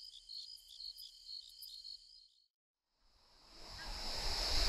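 Insects chirping in a high-pitched pulse, about four chirps a second, fading out about two seconds in. After a second of silence, the rush of river rapids swells in near the end.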